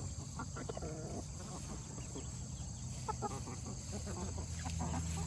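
A flock of hens (Barred Rocks, Rhode Island Reds and Buff Orpingtons) clucking softly, with scattered short calls.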